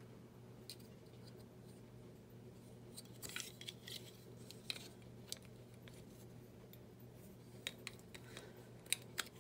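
Faint clicks and scrapes as a tiny electric motor is handled and pressed into a plastic chassis plate. A cluster of clicks about three to four seconds in, and a few sharp clicks near the end, over a low steady hum.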